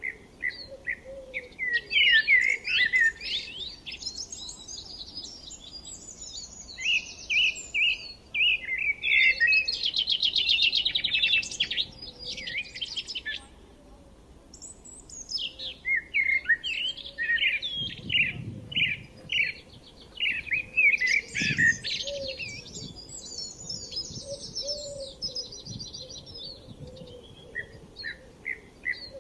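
Several songbirds chirping and singing together in quick repeated phrases and trills, with a faint low hum underneath and two soft low thuds in the latter half.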